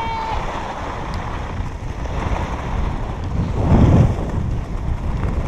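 Wind rushing over the action camera's microphone while sliding downhill, mixed with the hiss and scrape of snow under the rider, swelling about four seconds in.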